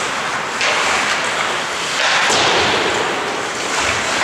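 Ice hockey play in an echoing rink: a steady hiss of skates on the ice, with two sharp impacts, about half a second and about two seconds in, ringing through the arena.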